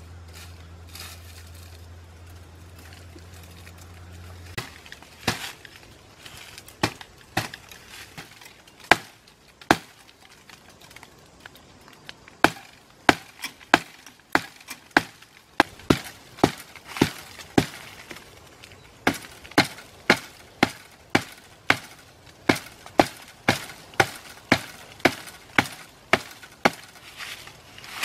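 A blade chopping into a bamboo stalk: sharp woody strikes repeated at about two a second, with short pauses between runs. A low steady hum is heard for the first few seconds, before the chopping starts.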